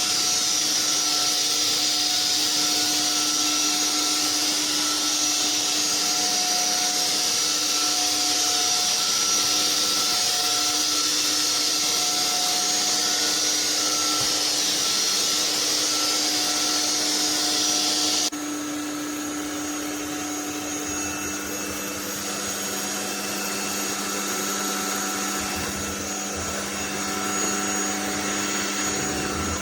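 Anyson cordless stick vacuum running steadily, a motor whine with strong airflow hiss. About two-thirds of the way through, the hiss and level drop suddenly and it carries on at a quieter pitch.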